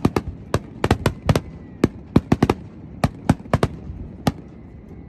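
Fireworks grand finale: a fast, irregular volley of sharp aerial-shell bangs, several a second, which stop about four seconds in.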